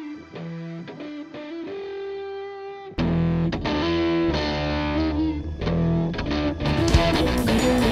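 Rock instrumental music led by electric guitar with effects and distortion. About three seconds in it jumps much louder as a fuller arrangement with a heavy low end comes in, with sharp percussive hits building near the end.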